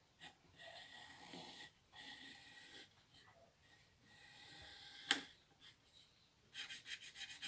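A hand tool rasping and sawing through wood in slow strokes, with a sharp knock about five seconds in and a quicker run of short strokes near the end.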